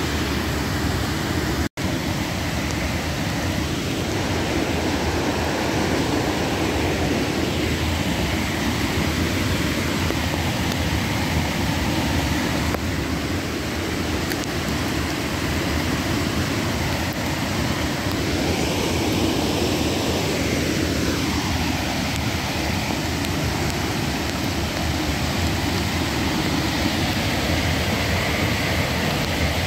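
Steady rush of floodwater from a flash-flooded creek, an even noise with no break except a split-second dropout about two seconds in.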